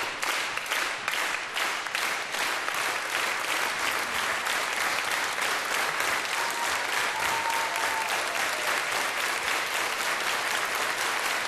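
Theatre audience applauding the performers' bow. The clapping starts in time, about three claps a second, then loosens into steady applause.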